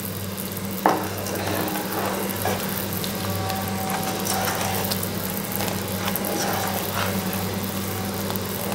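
Dark caramelized sugar syrup boiling with a dense bubbling fizz as a spatula stirs it round the pan, over a steady low hum. The spatula knocks the pan once about a second in. The syrup is being boiled down to the one-string stage.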